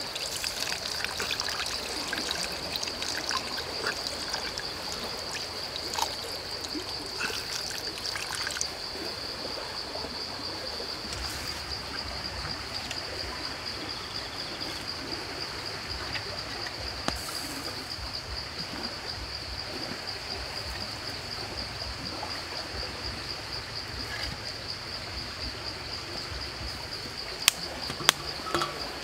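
Liquid trickling and splashing as coconut water is poured into a wok of chicken, which then simmers over a wood fire. A steady high-pitched insect drone runs underneath, and scattered knocks and rustles of handling come in the first nine seconds or so.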